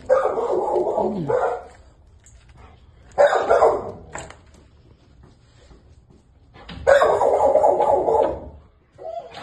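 A dog barking loudly in three drawn-out bouts, each about a second long and a few seconds apart.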